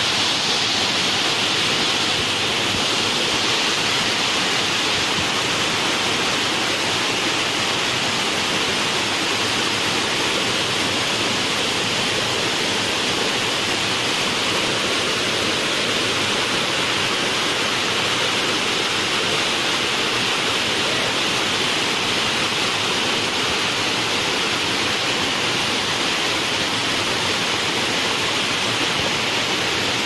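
Steady rush of water pouring over many shallow, terraced waterfall cascades.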